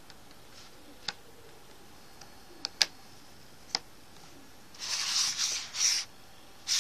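A few small, sharp clicks as a USB cable's plug is handled and pushed into a smartphone's charging port, followed by rubbing and scraping of the phone being moved and set down on a laptop.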